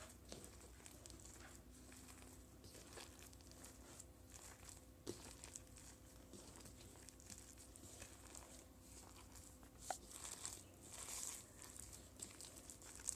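Faint soft squishing and rustling of hands squeezing and kneading batter-soaked stale bread pieces in a plastic bowl, with a few light clicks and a busier stretch about ten seconds in.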